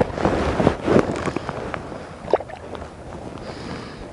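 Rustling and a few short knocks as gear is handled in a kayak, over a steady hiss. The handling is louder in the first second.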